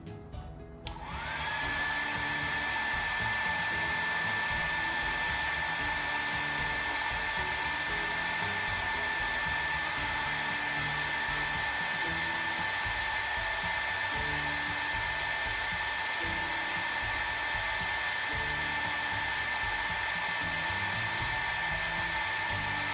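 Exhaust fan starting up about a second in, its motor whine rising quickly to a steady pitch over a rushing of air. It then runs evenly and cuts off suddenly near the end.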